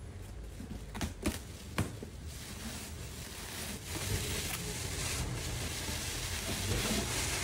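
A cardboard box being opened, with a few sharp snaps in the first two seconds, then clear plastic packing wrap rustling and crinkling as it is pulled out of the box, growing louder.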